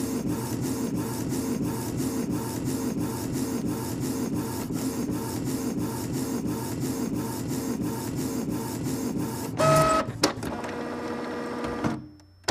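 Inkjet printer printing a photo: the print head carriage shuttles back and forth in an even rhythm of about four strokes a second. A little before ten seconds in, a louder motor whine and a sharp click break the rhythm, then a different motor sound runs on and fades near the end.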